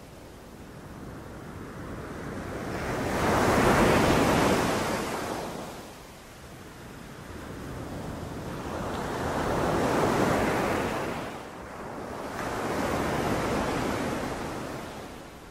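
Sea waves breaking on a beach: three surges of surf that swell up and wash back, the first, about four seconds in, the loudest.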